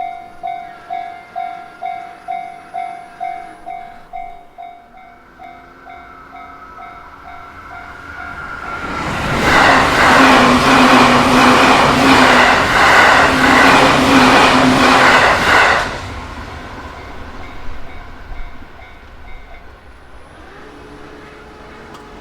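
Japanese level-crossing warning bell ringing about twice a second, then an electric train on the JR Chuo Main Line passes loudly through the crossing for about seven seconds with a rhythmic clatter of wheels on the rails, and the sound fades away after it.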